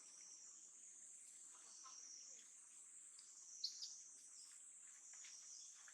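Faint, steady, high-pitched insect chorus of crickets or cicadas. A single brief, sharp chirp stands out a little past halfway.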